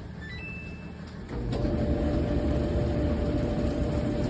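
A few short electronic beeps, then an electric clothes dryer starts up about a second and a half in and runs with a steady motor hum and blower whir.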